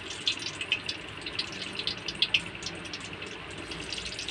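Onion chunks sizzling in hot oil in a kadhai, a steady hiss with irregular crackling pops.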